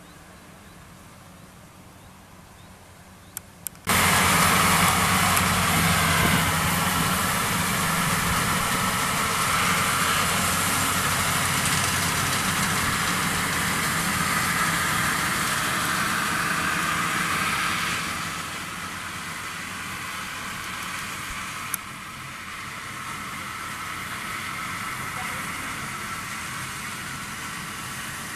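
Combine harvester engine running. A faint low hum at first becomes much louder all at once about four seconds in, then settles to a lower steady level about eighteen seconds in.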